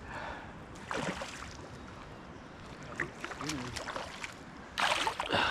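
Water splashing and sloshing as a freshly hooked striped bass thrashes at the surface, with louder splashes about a second in and near the end.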